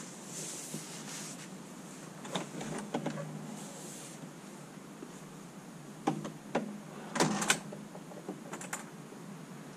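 Steady background hiss with a scattered run of sharp clicks and taps: a few about two and a half to three seconds in, more from about six seconds, the loudest cluster near seven and a half seconds.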